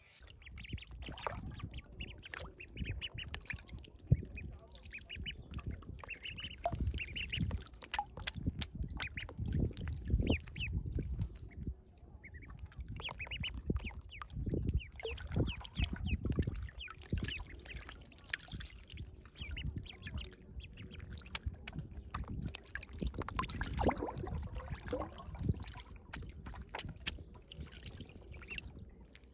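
Ducklings peeping in short high calls, thickest in the first several seconds, while they paddle and splash in a shallow plastic basin of water, the water sloshing irregularly.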